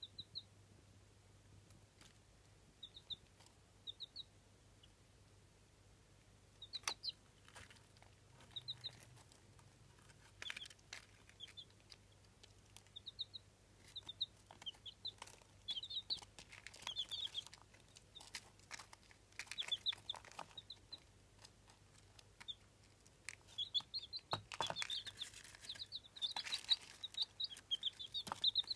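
Eight-day-old Jawa Aseel chicks peeping in short high chirps, sparse at first, then more frequent and crowding together near the end. Scattered taps and rustling sounds come with them.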